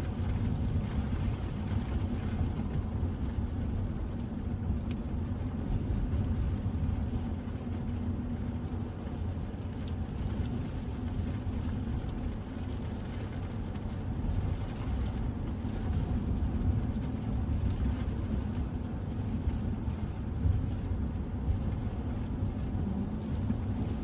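Steady low rumble of road and engine noise heard inside the cab of a moving 2021 Ford F-150 pickup.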